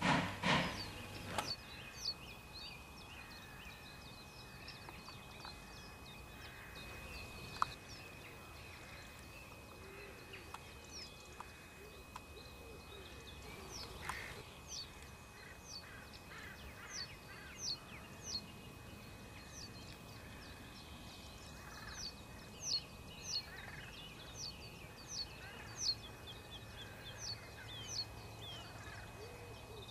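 Small songbirds, among them a male reed bunting, giving short, high, downward-slurred chirps over faint outdoor background noise, sparse at first and coming several times a second in the second half. A faint steady high tone runs underneath.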